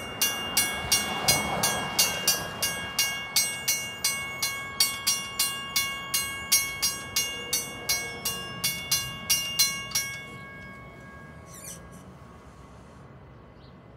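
Railroad grade-crossing warning bell ringing, about three strikes a second, as the crossing gates come down. It stops about ten seconds in, with the gates down.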